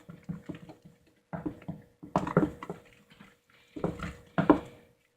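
Wet, squelchy handling noises from a bowl of runny homemade slime made of flour, shampoo and toothpaste, coming in four short irregular bursts.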